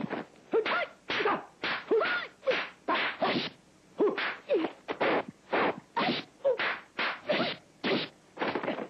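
Dubbed kung fu fight sound effects: a rapid series of punch and kick whacks and swishes, about two a second, each mixed with short pitched cries from the fighters.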